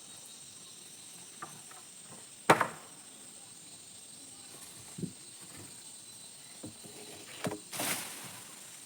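A few scattered knocks and clacks, the loudest about two and a half seconds in, with a short scraping burst near the end, over a steady faint high-pitched insect chirr.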